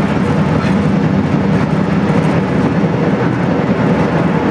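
Steady cockpit noise of an airliner in flight on approach: the rush of air past the nose and the drone of the engines and cabin systems, with a steady low hum.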